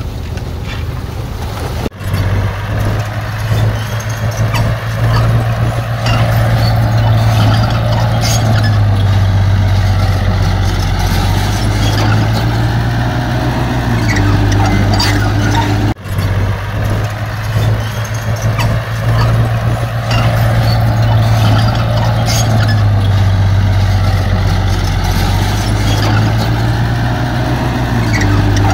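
Heavy diesel engine of earthmoving machinery running steadily under load, its pitch shifting a little, with scattered clanks and rattles over it. The sound cuts out abruptly twice, after about two seconds and again near the middle.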